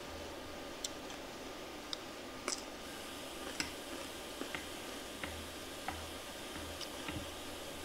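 Eating sounds: a metal spoon and fork clicking and scraping on a plate, with mouth and chewing sounds, as irregular sharp clicks about one or two a second.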